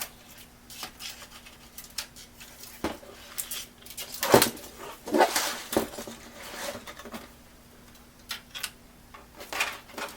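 Irregular clicks and clattering knocks of small hard objects being handled, loudest in a cluster about four to six seconds in.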